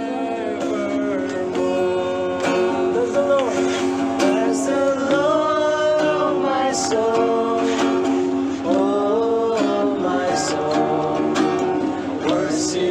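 Music: a song with a singing voice over plucked acoustic guitar.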